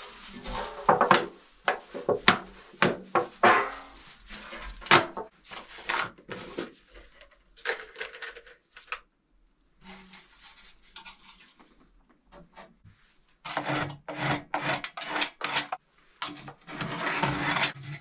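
A metal pipe and a round metal plate being handled, scraped and knocked together on a straw floor: irregular knocks, scrapes and rustling, busiest in the first few seconds and again near the end.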